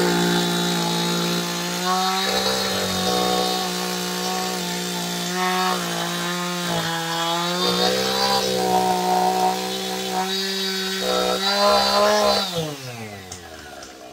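Two-stroke chainsaw cutting through a pine log, its engine held at a high, steady speed under load. Near the end the throttle is released and the engine winds down toward idle.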